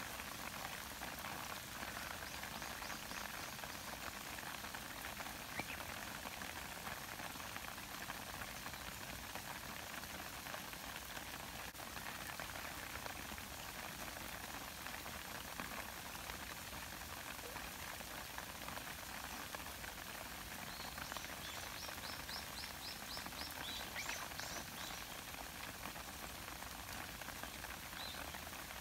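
Light rain falling steadily on reeds and grass, a soft even hiss. A short run of quick, high chirps comes in about two seconds in and again about three-quarters of the way through.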